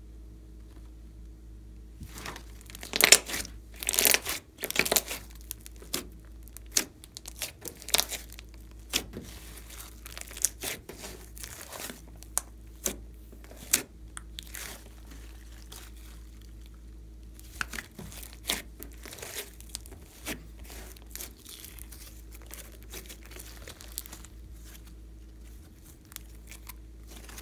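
Glossy slime being squeezed, poked and pulled by hand, making irregular wet crackles and pops as air pockets in it burst. The crackling starts about two seconds in and is busiest over the next few seconds, then comes in scattered clusters.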